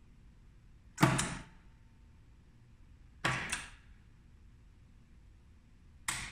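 Three sharp clacks, about one, three and six seconds in, each with a short ring: a magnetic contactor (power relay) on a control board switching as its push buttons are pressed, pulling in and dropping out in a self-holding circuit.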